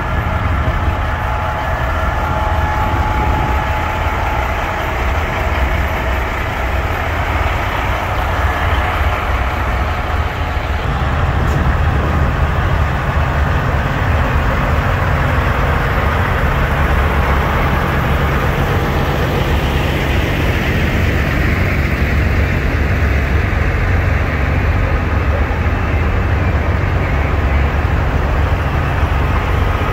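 Heavy diesel truck engine running nearby, a steady low rumble that shifts slightly about eleven seconds in.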